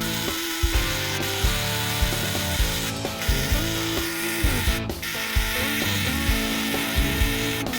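Ratchet wrench clicking as a nut or bolt is turned, over background music with a steady beat.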